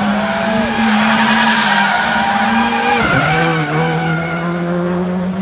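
Drift car's engine held at high revs with a steady note while its tyres squeal and skid through a slide; about three seconds in the engine note dips briefly, then climbs again as the slide goes on.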